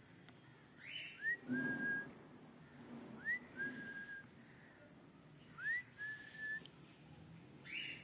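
Three whistles, a couple of seconds apart, each a quick upward slide into a held steady note. Short raspy calls come just before the first whistle and again near the end.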